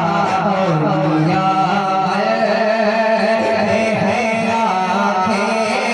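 Male voice singing a naat, an Urdu devotional poem, in long melismatic phrases with slowly wavering pitch, over a steady low hum.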